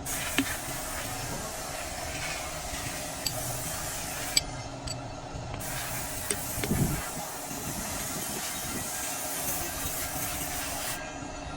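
A steady hiss with a few sharp clicks and knocks, and a low thump about seven seconds in; the hiss's highest part drops out briefly after about four seconds.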